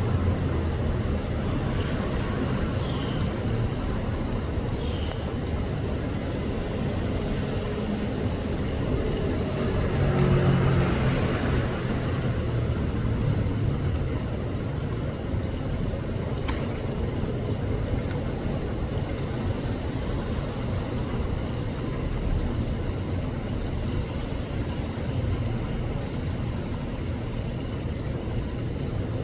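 Steady wind and heavy rain, with wind rumbling on the microphone; the wind swells briefly about ten seconds in.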